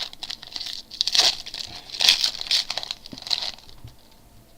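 Foil trading-card pack wrapper crinkling and tearing as it is opened by hand, in several bursts of rustling that die away shortly before the end.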